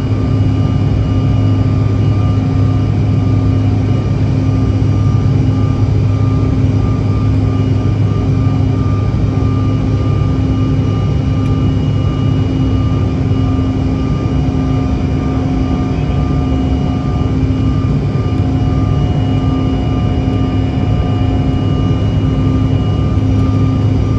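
Bombardier CRJ-700's twin rear-mounted GE CF34 turbofans running steadily at high power during takeoff: a constant jet roar with a steady low hum and a few fixed whining tones over it.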